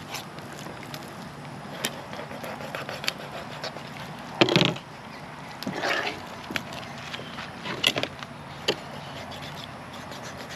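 Knife work and handling while filleting a flathead catfish: scattered small clicks and taps, with a few louder, brief scraping or tearing sounds about four and a half, six and eight seconds in.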